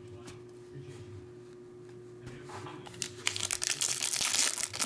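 A foil trading-card pack wrapper being torn open by hand, crinkling and tearing. It starts about halfway in and grows loud near the end.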